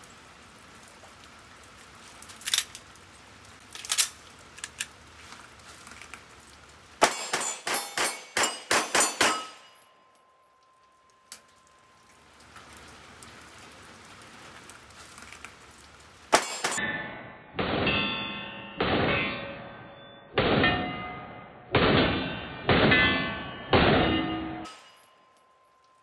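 Stock Gen 5 Glock 34 9mm pistol fired in a fast string of about six shots in roughly two seconds, after a few light clicks. Then comes a second string of about seven shots spaced about a second apart, which sounds duller and rings on longer after each shot.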